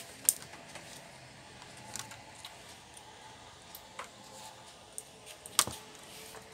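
Scattered sharp clicks and taps of plastic laptop parts being handled and fitted into place on an HP G6 laptop, the loudest about half a second in and near the end.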